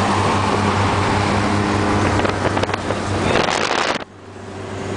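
Wind and road noise of a car travelling at highway speed, with a steady low engine drone and wind buffeting the microphone. A run of clicks near the end, then the sound drops away suddenly about four seconds in and comes back gradually.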